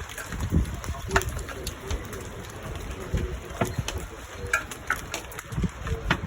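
Hailstones striking surfaces around a house in irregular sharp clicks and taps, with low rumbling gusts of wind on the microphone.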